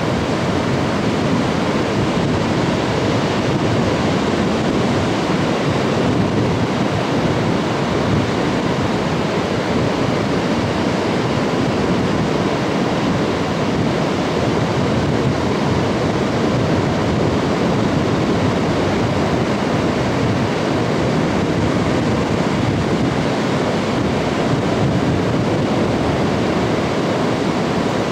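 Steady rush of ocean surf breaking on a beach, mixed with wind on the microphone.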